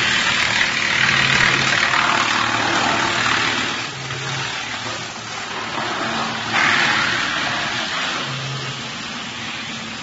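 LDBX216 wood chipper running, fed by a belt conveyor, with a steady low hum under a loud rough rushing noise. The rushing swells while wood is being chipped, most strongly near the start and again about six and a half seconds in.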